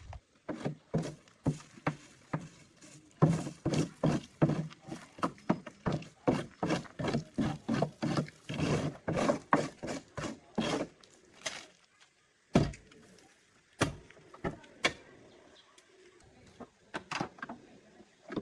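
A quick run of knocks or strikes, about two to three a second for some ten seconds, then a few scattered single knocks.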